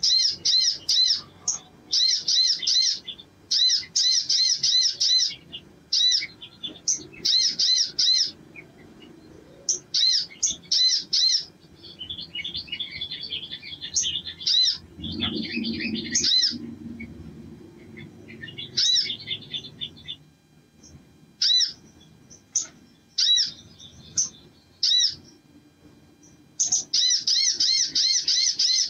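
Male olive-backed sunbird singing: repeated bursts of rapid, high, ringing notes, with a busier chatter about halfway through and a long unbroken run near the end.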